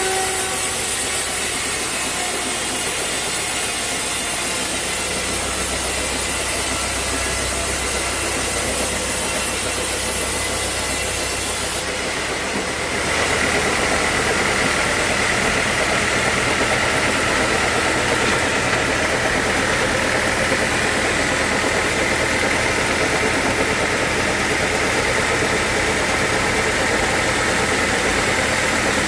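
Sawmill saw and its machinery running steadily while sawing teak logs. About thirteen seconds in the sound shifts and grows a little louder, with a steady high whine coming in.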